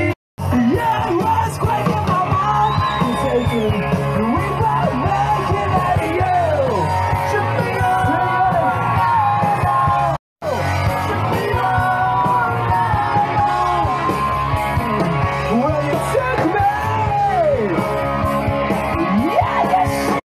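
Live rock band playing with a singer, loud and steady. The sound cuts out completely twice, very briefly: about a quarter second in and again about ten seconds in.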